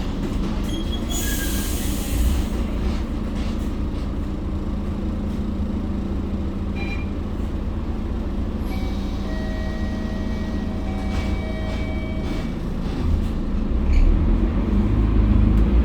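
Mercedes-Benz OC500LE city bus running, heard from on board: a steady low engine drone, a short hiss of air about a second in, and a steady whine for a few seconds past the middle, with the engine growing louder near the end.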